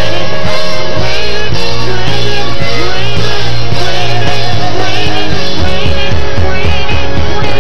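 Live gospel worship music from a band, playing loud and continuous with a heavy bass.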